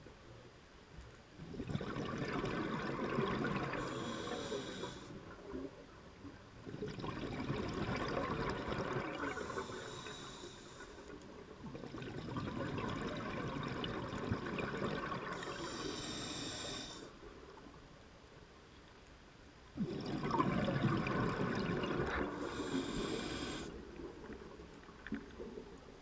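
Scuba diver breathing through a regulator underwater: four breaths, each a long rush of bubbling noise with a brief high hiss near its end, separated by short quiet pauses.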